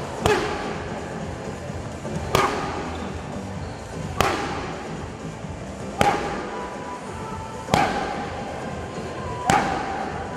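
Background music with a heavy hit about every two seconds, six in all.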